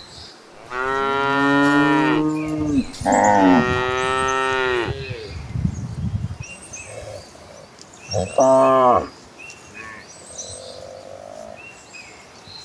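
Cattle mooing: two long, drawn-out moos one after the other, then a shorter moo about eight seconds in.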